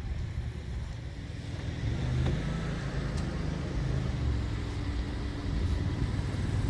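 Motor vehicle engine running close by, a steady low rumble that gets louder about two seconds in.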